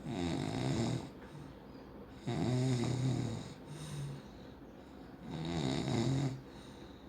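A person snoring: three snores each about a second long, spaced roughly two and a half seconds apart, with a shorter, fainter one just after the second.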